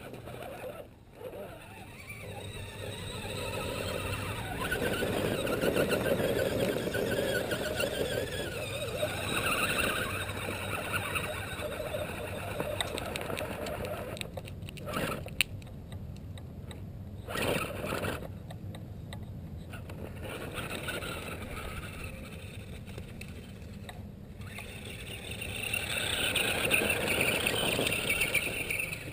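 Electric drivetrain of an Axial Wraith RC rock crawler whining under load as it climbs, with its tyres scrabbling over dirt and rocks. It swells louder for several seconds in the first third and again near the end.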